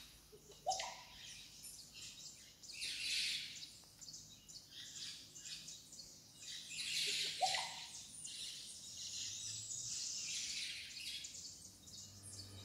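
Many birds chirping and calling at once, the chorus swelling and fading in waves, with a short rising call about a second in and again about seven and a half seconds in.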